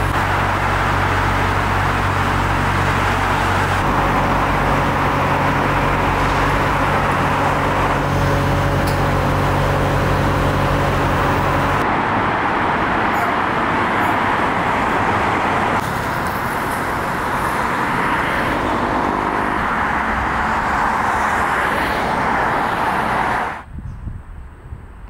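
Loud, steady road traffic noise with a low engine hum under it during the first half. It drops off sharply near the end.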